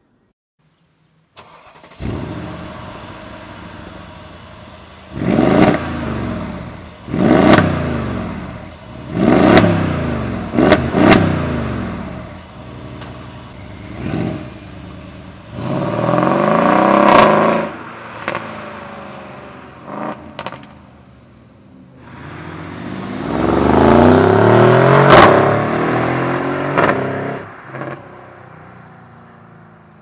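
Mercedes-AMG GLE 63's V8 biturbo starting about two seconds in with a loud flare. It is then revved in a series of short blips that rise and fall in pitch, with a longer, louder pull as the car drives off near the end, and a few sharp cracks between revs.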